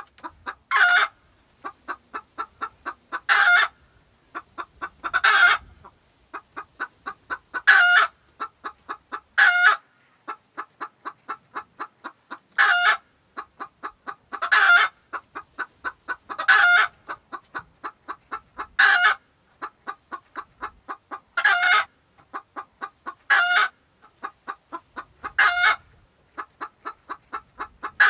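Barnyard hen clucking: quick runs of short clucks, each run ending in a longer, louder squawk, repeating about every two to three seconds.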